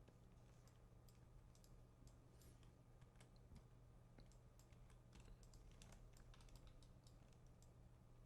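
Near silence: faint, scattered computer mouse and keyboard clicks over a steady low hum.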